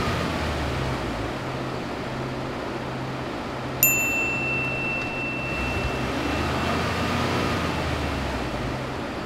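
Ford pickup truck's engine running steadily. About four seconds in, a bright chime-like 'ding' sound effect rings out and fades over a couple of seconds.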